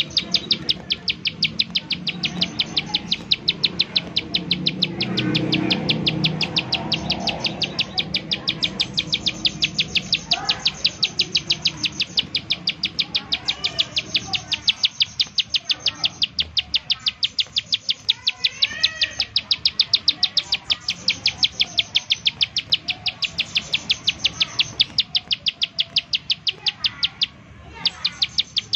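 Plain prinia (ciblek sawah) giving its rapid 'nembak' call: a fast, even run of sharp high ticking notes, about four a second, with a short break near the end. Fainter chirps from other birds are underneath.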